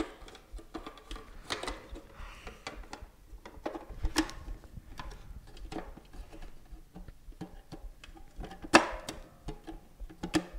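Scattered clicks and knocks of hard parts being handled during a TV teardown, with a louder knock about nine seconds in.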